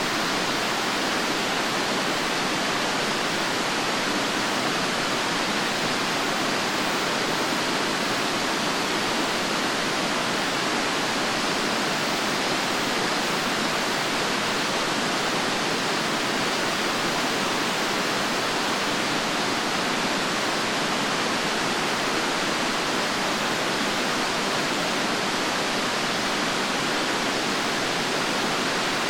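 Fukuroda Falls, a large multi-tiered waterfall, rushing with a steady, even roar of falling water that does not change.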